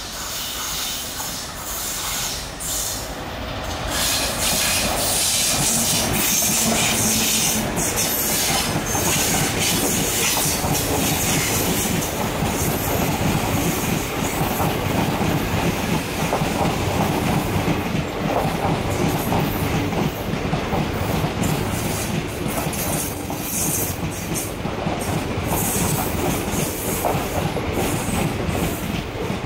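Diesel locomotive and its passenger coaches passing close by. The locomotive grows louder over the first few seconds, then the coaches keep up a steady rumble with wheels clattering on the rails.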